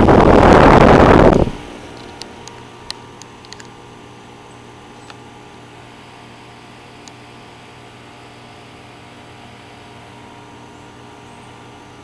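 Carrier central air-conditioner condenser running, its three-blade fan blowing air up through the top grille. For the first second and a half the discharge air buffets the microphone as a loud rush; after that the unit settles into a steady hum, with a few faint ticks.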